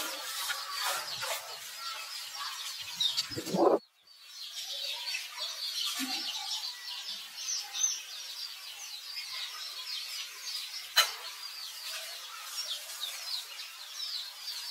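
Many small birds chirping, with a louder short call rising in pitch about three and a half seconds in, then a brief drop-out, and a single sharp click near eleven seconds.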